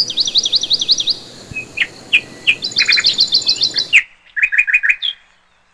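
Greater Yellowlegs calling: rapid runs of high, sweeping whistled notes, then a quick series of four clear notes near the end.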